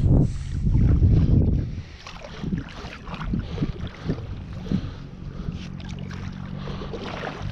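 Creek water splashing and sloshing as a fishing magnet is hauled in hand over hand on a wet rope. It is loudest in the first second and a half, then quieter, scattered small splashes and drips.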